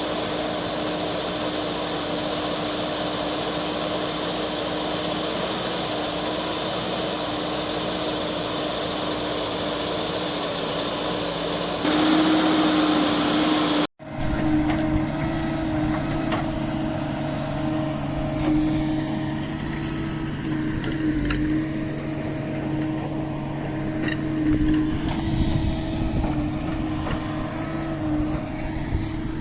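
Diesel engine of a JCB earthmoving machine running steadily, with a constant hum; it cuts off abruptly about 14 seconds in and resumes, now with a rougher rumble and occasional short metallic knocks.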